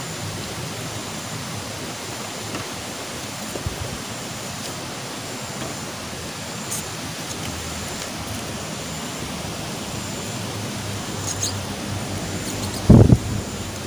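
Steady background hiss with a few faint clicks of hands working bonsai training wire around a ficus branch, and a single dull thump about a second before the end.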